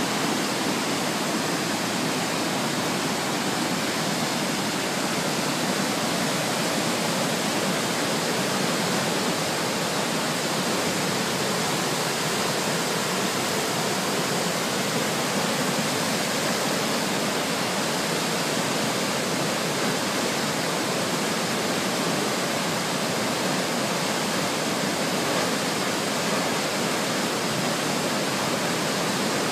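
Waterfall in spate, its muddy floodwater crashing down a cliff face: a steady, unbroken rush of falling water.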